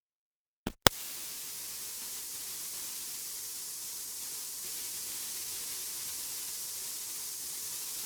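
Two sharp plug-in clicks as the AC-2EX intercom is connected to the 9er Systems USB audio interface, then a steady hiss of electrical noise on the line, heaviest in the treble: the noise floor went crazy. The uploader suspects a ground that isn't connecting in this setup.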